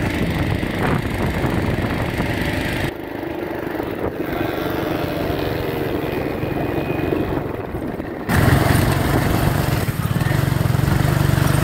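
Small dirt bike engines running as they are ridden, the engine note shifting as the throttle changes. About eight seconds in, the sound gets suddenly louder with a fast low buzz, as one bike opens up or comes close.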